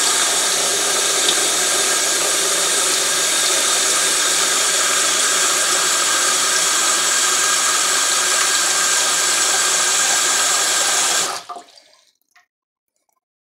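Kitchen faucet running a steady stream into a stainless steel sink, the water pooling over a closed basket strainer that holds it rather than draining. The flow cuts off suddenly about two seconds before the end.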